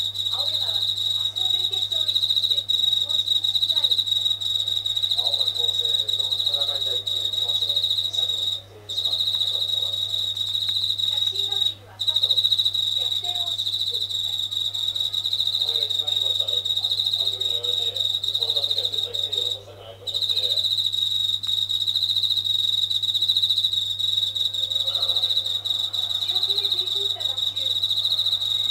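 Yabukiri katydid (Tettigonia orientalis) singing a continuous high buzzing trill, breaking off briefly three times.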